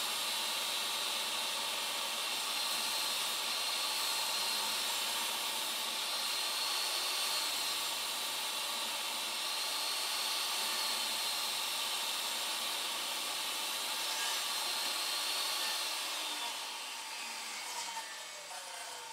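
DeWALT DWE7485 10-inch jobsite table saw's universal motor running while a board is fed through the blade, a steady high whine over a hiss. About sixteen seconds in the saw is switched off and the whine falls in pitch as the blade spins down.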